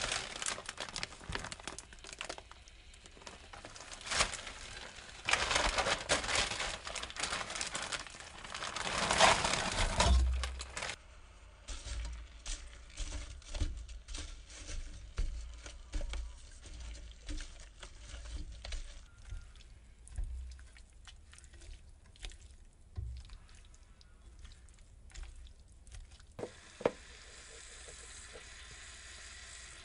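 Kimchi and fish cake strips stir-frying in a pan: irregular sizzling and crackling with the stirring of a silicone spatula, loudest from about four to eleven seconds in, settling to a steadier sizzle near the end.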